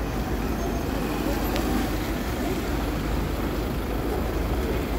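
Steady city-street traffic noise on a wet road, with no single event standing out.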